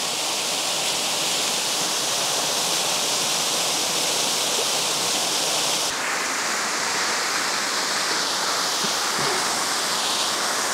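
Steady rush of Benton Falls, a waterfall and its creek, pouring over rock. The sound's tone shifts slightly about six seconds in.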